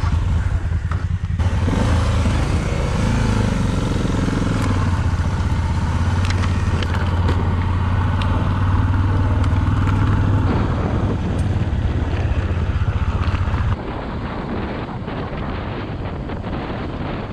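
Dual-sport motorcycle engine running steadily under way. The sound changes abruptly a couple of times and drops to a quieter level about three-quarters of the way through.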